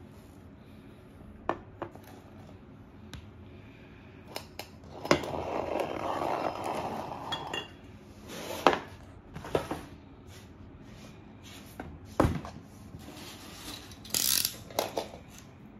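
Glass storage jars and ceramic vases being set down and shifted on a wooden floor: scattered sharp knocks and glassy clinks, with a longer scraping noise about five to seven seconds in.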